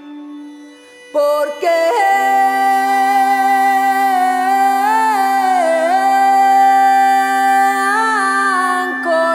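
Medieval-style music: a steady low drone, joined about a second in by a long, held melody line that bends and turns in pitch.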